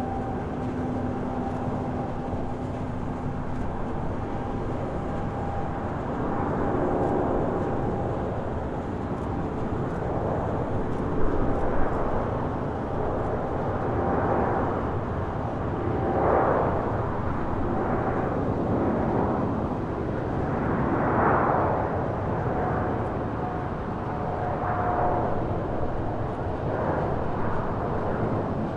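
Jet engines of an Airbus A330-223 airliner running, its two Pratt & Whitney PW4000-series turbofans giving a steady rough noise with a few held hum tones, the noise swelling and fading several times.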